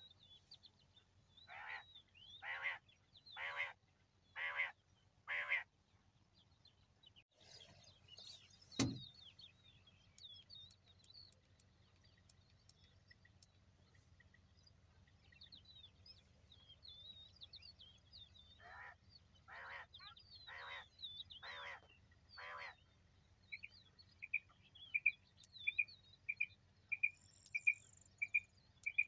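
Wild quail calling: a run of five harsh calls about one a second, and another run of five a little later, over steady chirping from small birds. A sharp click comes about nine seconds in, and near the end a shorter, higher call repeats about twice a second.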